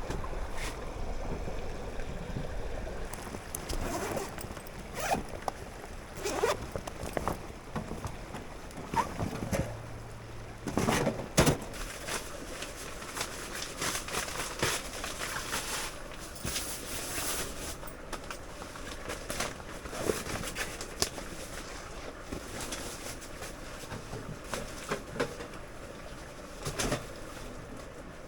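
Scattered knocks, clicks and clatter of camp gear being handled over a steady background hiss.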